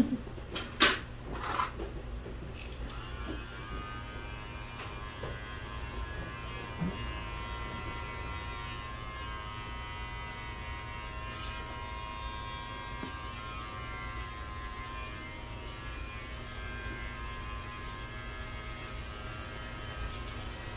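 A few sharp clicks, then a cordless electric hair clipper running steadily from about three seconds in, with an even buzz that holds to the end.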